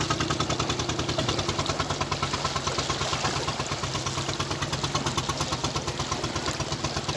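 Fishing boat's engine idling with a steady, rapid, even beat.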